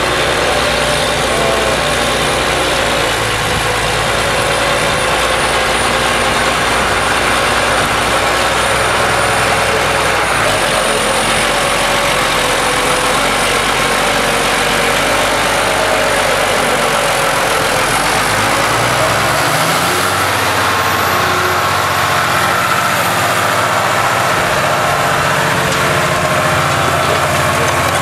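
County 1884 tractor's six-cylinder diesel engine running steadily, then about two-thirds of the way in its note rises as it revs up and holds at higher revs, pulling a plough.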